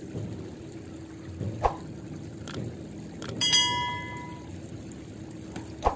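Running, trickling water throughout, overlaid with a subscribe-button sound effect: a few sharp clicks and, about halfway through, a bright bell-like ding that rings out and fades.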